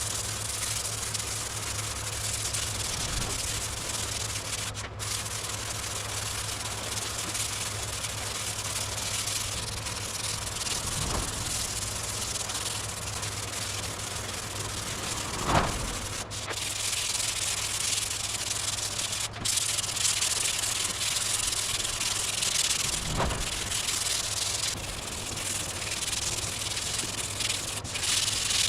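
Steady abrasive sanding of resin primer on a car body panel: a continuous dense hiss with a low hum beneath, broken off for an instant a few times. A short knock sounds a little past halfway.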